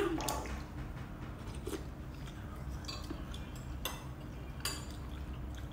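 People eating soup: metal spoons clinking against ceramic bowls, with quiet chewing and sipping, and one sharp clink at the very start.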